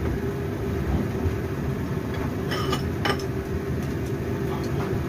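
Steady low machine hum with a constant tone throughout, and two light clinks of chopsticks against the steel soup pot about two and a half and three seconds in.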